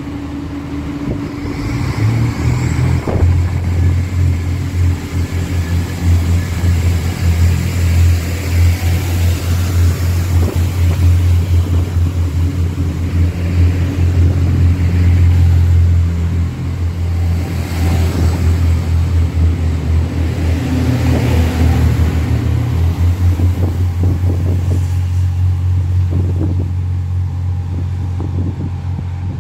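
Irish Rail 29000 class diesel multiple unit pulling out of the station past the platform, its underfloor diesel engines running under load with a steady low drone. A short rising whine comes about two to three seconds in, and the sound eases slightly near the end as the train draws away.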